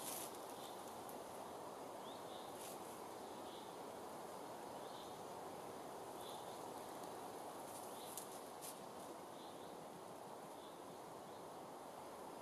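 Quiet woodland ambience: a steady soft hiss with faint short bird chirps every second or so. A few light clicks and rustles come from the wooden poles of the chair frame being handled, about a third of the way in and again about two-thirds in.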